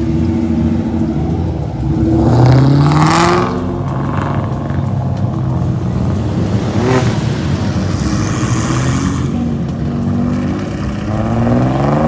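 Car engine revved hard through its exhaust: the pitch climbs in a long rev about two seconds in and again near the end, with a quick blip about seven seconds in, settling back to idle between.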